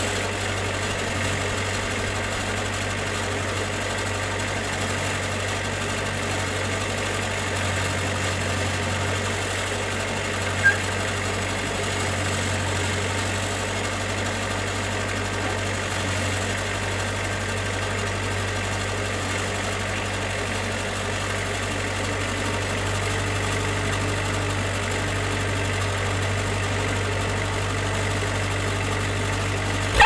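Portable band sawmill's engine idling steadily, with one brief knock about ten seconds in.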